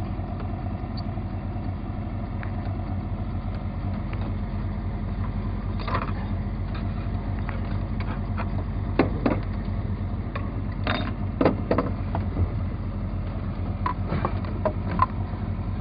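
Boat motor idling steadily, with a few short knocks and clatters from handling in the boat.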